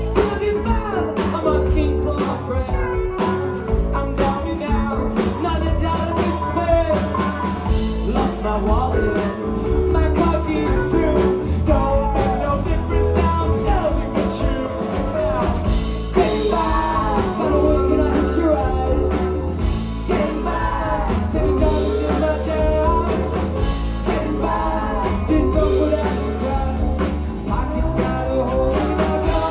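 A live rock band playing a song with drums, bass and guitars, and a melodic lead line bending in pitch over a steady beat.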